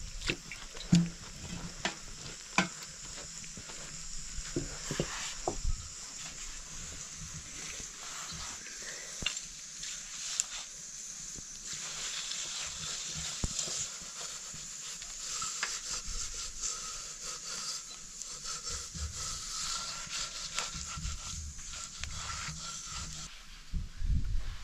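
Food frying and sizzling in a pan as it is stirred, with a steady hiss and scattered clicks and scrapes of the spoon against the pan.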